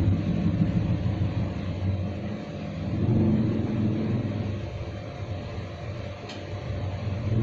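A low, wavering rumble that swells and fades, with a single faint click near the end.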